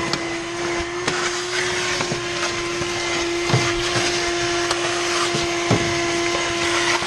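Small wet/dry shop vacuum running steadily, its hose nozzle sucking dirt off the boat's floor, with a few sharp clicks of grit going up the hose.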